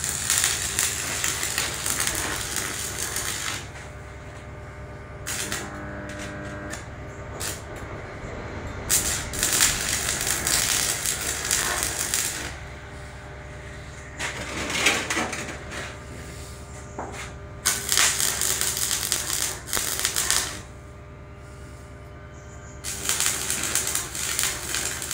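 Stick (MMA) welding arc crackling and spitting as a rod is run along joints of a steel frame. It comes in four or five runs of a few seconds each, with short breaks between as the arc is broken and struck again.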